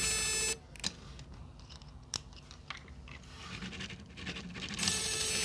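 Faint plastic clicks and rubbing as the rotor blades of a small toy RC helicopter are turned by hand. A steady buzzing hum runs for the first half second and comes back near the end.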